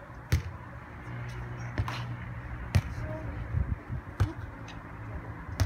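A beach volleyball being struck during a rally: five sharp slaps as players' forearms and hands hit the ball, about a second to a second and a half apart.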